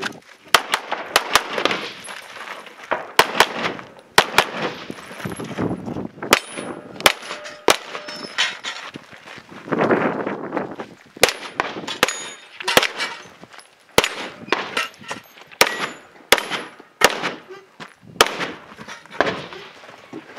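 A competition handgun fired in quick strings of shots at an uneven pace, with pauses between strings. Several shots are followed by a short metallic ring, typical of hits on steel targets.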